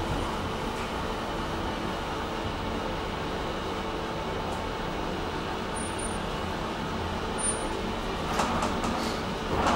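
Steady mechanical hum of an inclined elevator heard from inside its closed car, a low drone with several held tones, with a couple of short rattles near the end.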